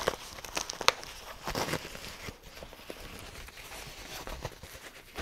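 Packing wrap rustling and crinkling as a small wrapped part is handled and unwrapped by hand, with a few sharp clicks and taps.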